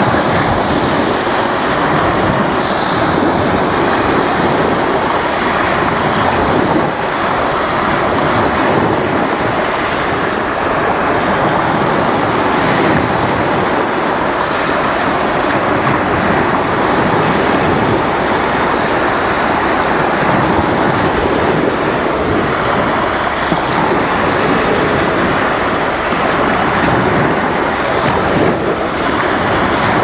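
Small Black Sea waves breaking close by and washing up over a sandy shore: a steady rush of surf.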